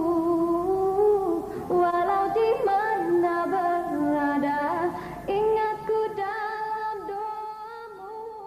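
A woman singing long, held notes with music, fading out near the end.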